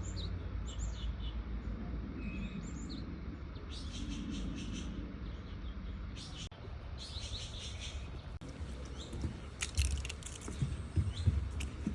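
Wild birds chirping, in repeated groups of short high chirps, over a low steady rumble. A few louder knocks come near the end.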